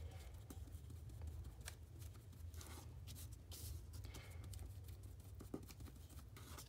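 An ink applicator tool dabbed and scuffed repeatedly against paper, giving faint, irregular taps and rubs, over a steady low hum.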